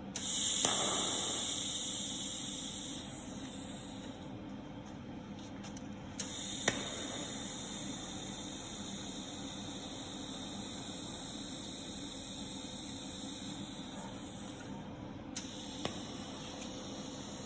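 TIG welding arc burning steadily with a hiss and a faint hum, loudest just after it starts and easing over the first few seconds. A few sharp clicks come about six seconds in and again near the end.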